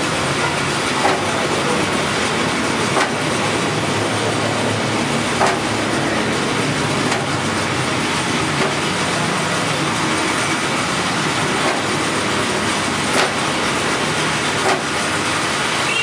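Resistance spot welder joining the steel-wire crossings of a bird-cage panel: a sharp snap every one and a half to two and a half seconds as each weld is made, over a steady loud noise.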